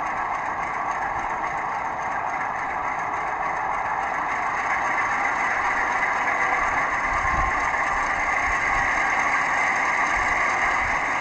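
Recorded China Railway DF4B diesel locomotive engine sound played by an ESU LokSound V5 decoder through a model's small speaker. The engine runs steadily and grows a little louder about four to five seconds in, with a few low thumps later on.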